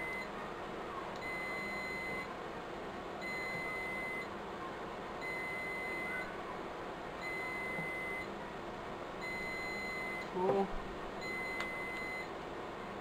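Electronic warning beeper sounding a steady high beep about every two seconds, each beep lasting well under a second, typical of a UPS alarm. A single spoken count word comes near the end.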